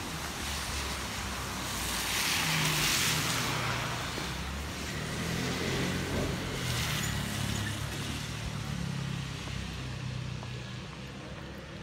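A car driving slowly along a wet street: low engine hum with tyres hissing on the wet road, the hiss swelling about two seconds in and again about six seconds in.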